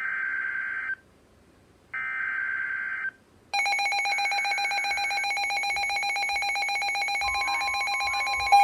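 Two short telephone-style ring bursts, each about a second long with a gap between them. About three and a half seconds in, a loud continuous electronic alert tone starts: a fast-pulsing ring with several steady pitches at once. A second steady tone joins it near the end.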